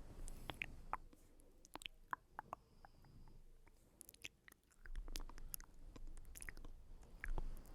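Close-miked ASMR mouth sounds: irregular wet clicks and smacks, with a low rumble through the second half.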